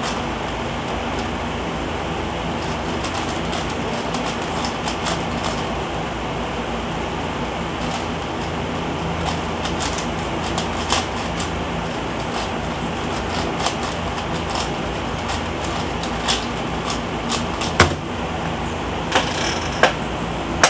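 Eastsheen 5x5 puzzle cube being turned fast, its layers clicking and clacking irregularly over a steady background hiss. Near the end comes one sharp tap as the solve timer is stopped, then a couple of knocks as the cube is set down.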